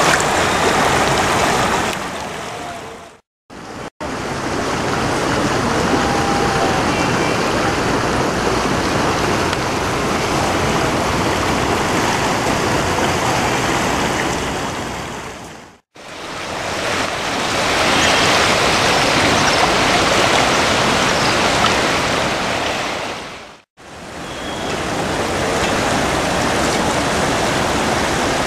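Flowing water of the Ganges river, a steady rush of current and waves. The sound is made of several takes, with brief dips to silence about three, sixteen and twenty-four seconds in.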